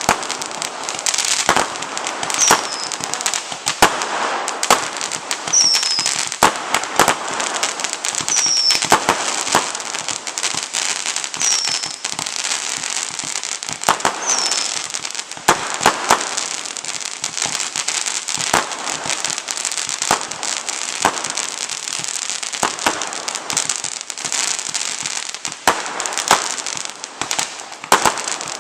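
Star Shooter consumer fireworks going off in a quick, irregular series of crackling pops and bangs over a steady hiss. A short, high falling whistle recurs about every three seconds through the first half.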